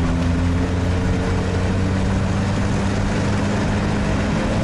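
All-terrain vehicle's engine running steadily at an even pitch as it drives slowly across snow.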